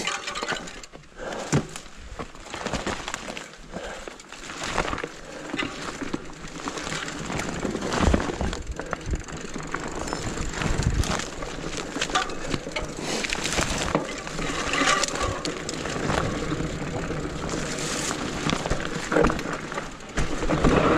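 Rigid fat bike rolling down a rough trail: the fat tyres crunch over rock and dirt while the bike rattles and knocks over bumps, with frequent clicks and cracks.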